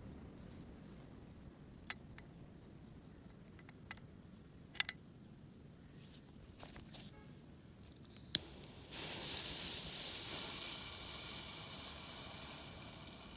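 A few sharp, scattered clicks, then a mini cannon's fuse starting to burn about nine seconds in with a steady hiss that fades over several seconds.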